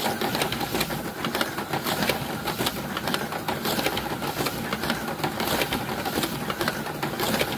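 Slot cars running laps of a plastic track: small electric motors whirring with constant rapid rattling and clicking from the cars over the track.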